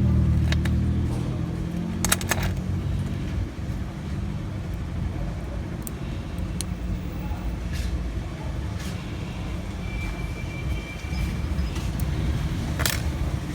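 Low steady rumble like a motor vehicle's engine, strongest in the first few seconds, with a few sharp clicks: a quick cluster about two seconds in and another near the end.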